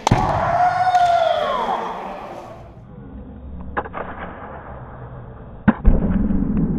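Kendo sparring with bamboo shinai: a sharp strike with a foot stamp on the wooden floor, followed by a long drawn-out kiai shout that rises and falls. A few light clacks of shinai knocking together follow, then another sharp strike and the start of another held shout near the end.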